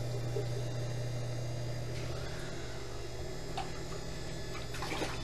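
Potter's wheel motor humming steadily while wet clay is centered on the spinning wheel head, with a few faint, soft sounds of the clay under the hands.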